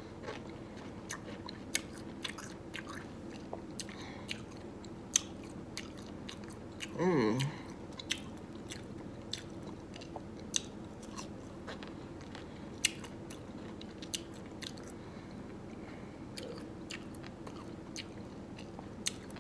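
A person eating a grape Kool-Aid dill pickle: biting and chewing, with sharp irregular crunches throughout. There is one brief vocal sound about seven seconds in.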